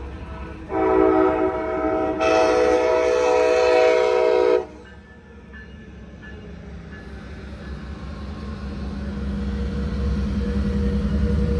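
Amtrak Charger locomotive's horn sounding two long blasts, the first starting about a second in and the second cutting off sharply at about four and a half seconds. After the horn, the low rumble of the approaching train grows steadily louder.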